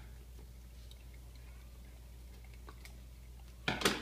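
Quiet room with a low steady hum and a few faint small clicks; near the end, one short loud knock-like rustle.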